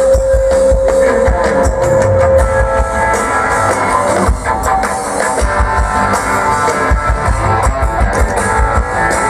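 Background music: a rock/pop instrumental with drum kit, bass and guitar, with a long held note in the first few seconds.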